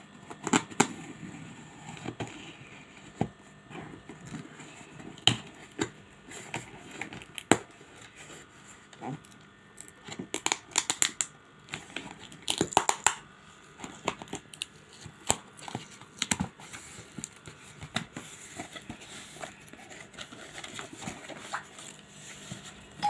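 A smartphone box and its packaging being handled and opened by hand: crinkling and tearing, with scattered sharp clicks and taps, busiest around the middle.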